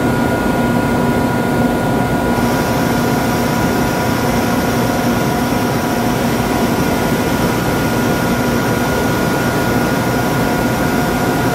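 Liebherr EC300 CNC gear hobbing machine running, a steady machine hum with several whining tones. About two seconds in, a low hum drops out and a higher hiss joins as the axes shift.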